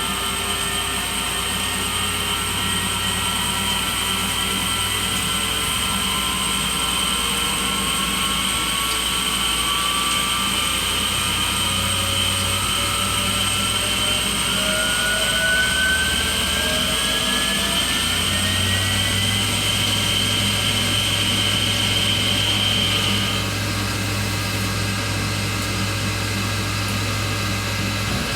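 Tormach Slant-Pro CNC lathe running a cutting pass on a 1045 cold-rolled steel cone, with a steady spindle-drive whine and several tones that slowly rise in pitch through the middle. The highest whine cuts off about 23 seconds in and the overall sound drops slightly.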